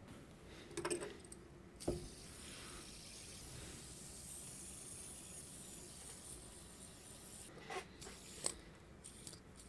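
Fidget spinner spinning close to the microphone: a faint, steady whirring hiss that starts after a couple of knocks about two seconds in, followed by a few clicks near the end.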